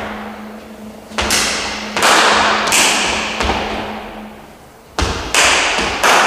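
Hand claps in two quick runs of three, one about a second in and one near the end, each clap ringing on in a reverberant room. Footfalls thud on the wooden floor as the person sidesteps between them.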